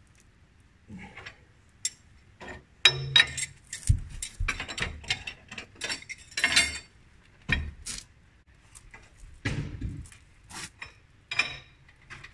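Irregular metallic clinks and knocks from hand work on a steel staircase with grated metal treads, with a few heavier knocks among them.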